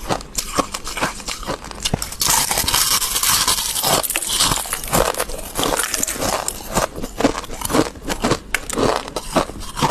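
Close-up biting and chewing of squeaky freezer frost: a run of sharp crunches. About two seconds in comes a longer, hissing scrape of frost.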